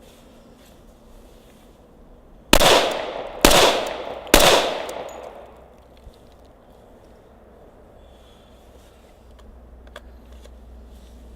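Three shots from a Glock 21 Gen 4 .45 ACP pistol, fired a little under a second apart, each followed by a short echoing decay.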